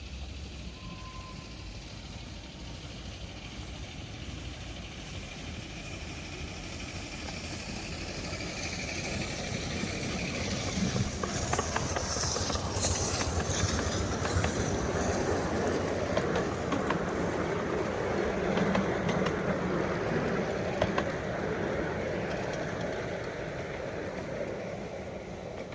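Miniature-gauge railway locomotive and its train approaching, passing close and running away, its wheels clicking over the rail joints. A hiss rises as it passes and then fades.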